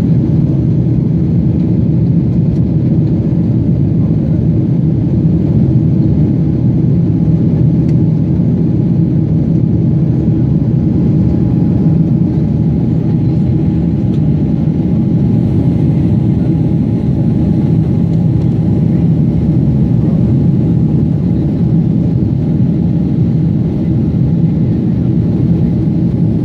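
Steady cabin noise of a jet airliner in flight: a loud, low rush of engines and airflow, with a faint steady hum joining about halfway through.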